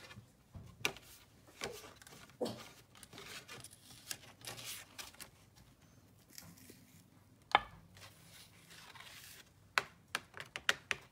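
Handling of a small plastic jar of embossing powder and of paper: scattered light clicks and taps with soft paper rustling, one sharper knock about two thirds of the way through and a quick run of small clicks near the end.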